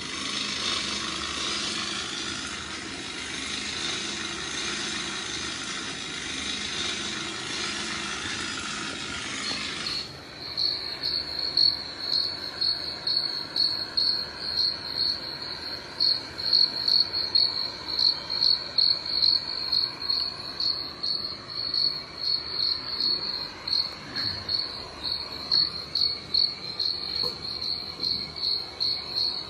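Cricket chirping from a cat-game video playing on a phone: a high, steady trill beating in rapid even pulses, starting about ten seconds in. Before it, a steady hiss.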